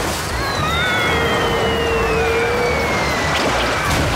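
Cartoon sound effects of water gushing from a tap and flooding in a steady rush. Over the rush, a whistling tone falls slowly in pitch for about three seconds.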